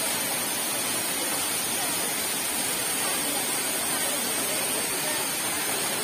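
Waterfall pouring down a rock face onto rocks below: a loud, steady rush of falling water.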